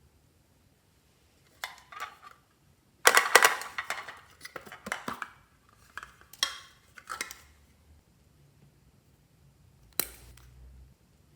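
Small hard objects rattling and clinking against a container in several short bursts. The longest and loudest burst runs from about three seconds in. A single sharp click comes near the end.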